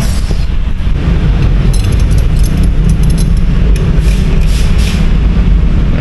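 A steady, loud low rumble throughout, with a few sharp metallic clicks from a T-wrench working loose the front brake caliper bolts of a Honda ADV 160 scooter, about two seconds in and again near the end.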